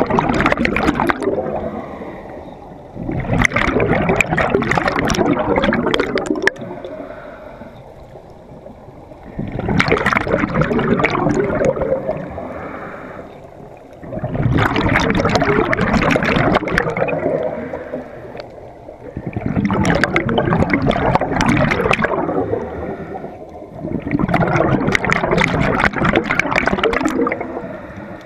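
Scuba regulator exhalations heard underwater: a loud bubbling rush of exhaust bubbles lasting a few seconds, repeating about every five seconds with quieter inhale gaps between.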